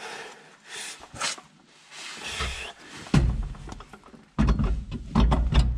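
Hands working a differential carrier into a rear axle housing: shuffling and scraping, then a heavy clunk about three seconds in and a quick run of loud thuds and knocks near the end.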